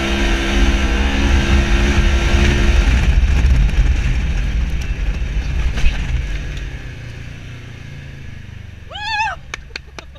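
Polaris RZR 1000 side-by-side's parallel-twin engine running at steady throttle, then the throttle closes about three seconds in and the engine note falls away as the vehicle coasts, with rumbling ride and tyre noise slowly fading. Near the end comes a brief high-pitched call that rises and falls, then a few clicks.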